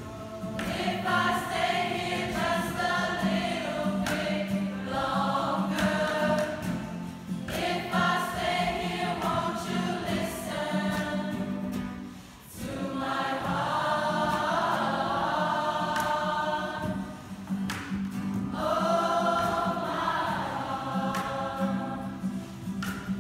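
Mixed school choir singing in phrases, accompanied by acoustic guitars, with a short break about halfway through.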